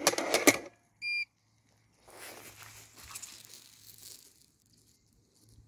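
Landxcape 790 robotic lawn mower bumping into its charging station with a few loud clattering knocks, followed about a second in by a single short electronic beep from the mower. Soft rustling follows for a couple of seconds.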